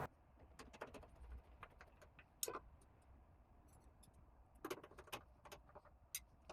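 Near silence broken by faint scattered clicks and taps, the clearest about two and a half seconds in and again just before five seconds.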